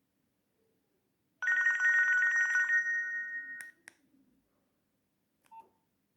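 Nokia 2610 mobile phone playing a ringtone through its speaker: a rapid two-tone trilling ring, like a telephone bell, lasting about two seconds and then cut off, followed by two quick clicks.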